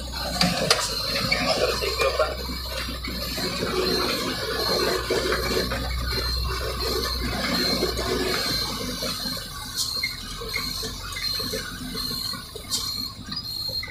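Truck driving slowly over a rough dirt road, heard from inside the cab: the engine runs with a steady low hum under rushing road noise and cab rattles, with a few sharp knocks.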